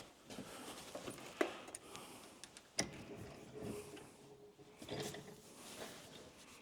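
Faint clicks and knocks of parts and tools being handled on a workbench, with light rustling; the sharpest clicks come about a second and a half and about three seconds in.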